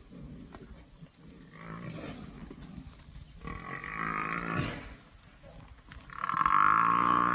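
African buffalo bellowing in distress while lions attack it: three long calls, the last and loudest one near the end.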